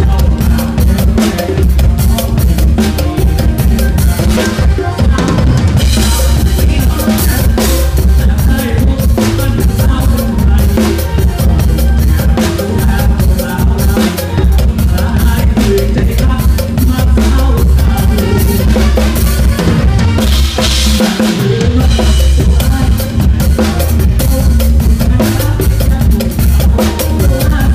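Drum kit played live in an instrumental passage of a mor lam sing band: a fast, driving beat of bass drum and snare, with cymbals, over the band's steady bass line.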